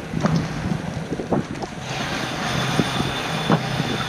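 Squall wind buffeting a sailboat and its microphone, with choppy waves slapping the hull in irregular knocks over a steady low hum. The wind noise grows fuller about halfway through.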